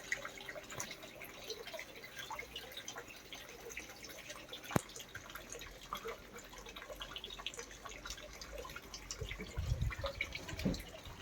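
Rainwater dripping irregularly, in scattered small ticks, as a heavy thunderstorm downpour ends, with one sharper tick about five seconds in.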